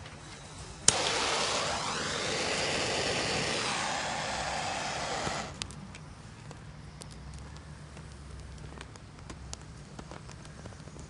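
Dry pine being set alight: a click about a second in starts a loud hiss that cuts off suddenly some four seconds later. Faint scattered crackling from the small burning pine follows.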